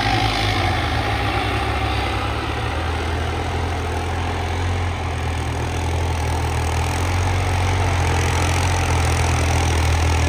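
Modified Farmtrac 6055 tractor's diesel engine running steadily under load, pulling a spring-tine cultivator through ploughed soil. It makes a low, steady drone that grows slightly louder over the last few seconds.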